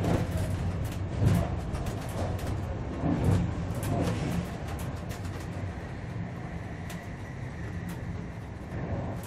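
German ICE high-speed train running, heard on board: a steady low rumble, with knocks and rattles over the first few seconds and a faint steady whine from about halfway.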